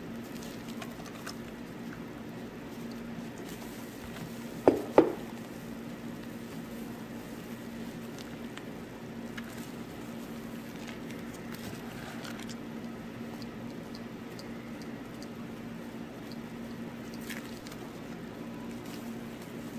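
Gloved hand squeezing pandan leaves in a glass bowl of frothy egg and coconut milk custard mixture: soft wet squishing and splashing, over a steady low hum. Two sharp knocks close together about five seconds in.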